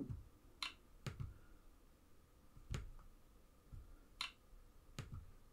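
Computer mouse button clicking, about eight sharp single clicks at irregular intervals over faint room tone.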